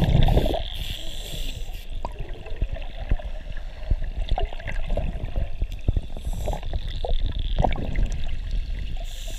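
Scuba divers' exhaled bubbles gurgling and crackling, heard underwater: a loud rush of bubbles at the start and another about three-quarters of the way through, with scattered pops and crackles in between.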